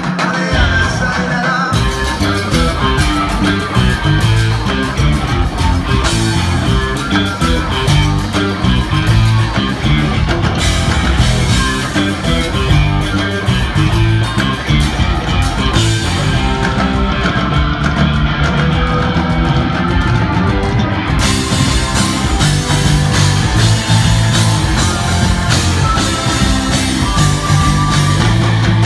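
Live rock band playing loud and steadily: electric guitars and bass over a drum kit, with the cymbals busier in the last third, heard over the venue's PA from the audience floor.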